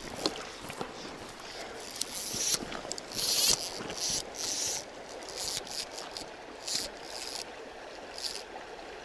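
Shallow river running steadily, with short irregular rasping bursts from a fly rod and reel being handled close to the microphone.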